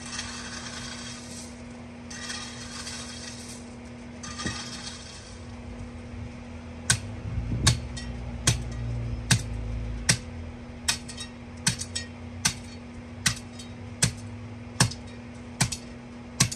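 Crushed stone being scraped and spread in three short spells, then a hand tamper pounding the gravel down. From about seven seconds in it gives a sharp, clinking strike roughly every 0.8 seconds.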